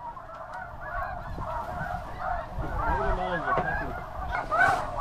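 A dense chorus of snow goose calls: many short, overlapping, high yelping honks with no break.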